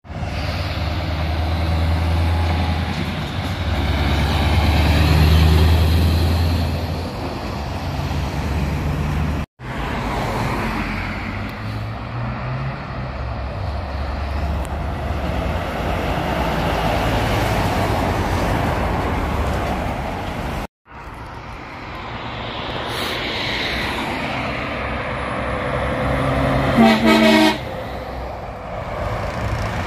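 Heavy articulated lorries driving past one at a time, with diesel engine drone and road noise, in three passes that each cut off abruptly. Near the end, as a lorry passes close by, a truck horn gives one short blast.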